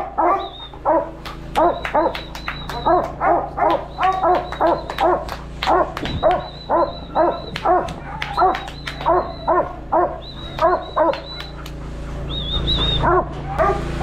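Working sheepdog barking up close, heard from a camera strapped to its back, in a steady run of short barks about two a second as it drives sheep through the yards. The barking eases briefly near the end.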